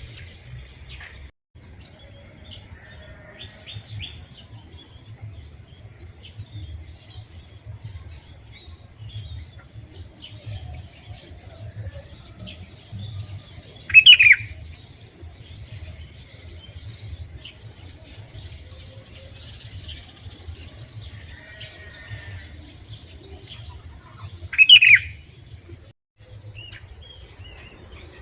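Steady high-pitched drone of insects, with scattered faint chirps and two loud short calls of a sooty-headed bulbul, one about halfway through and one near the end. The drone cuts out briefly twice.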